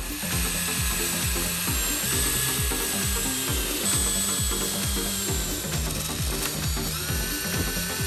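A workshop power tool running with a high whine that shifts in pitch a few times and rises near the end, over dance music with a steady kick beat.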